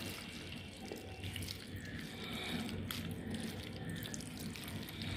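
A spoon stirring boiled macaroni and chopped fruit into a cream-and-mayonnaise dressing in a plastic bowl: a faint, steady mixing sound with no single loud stroke.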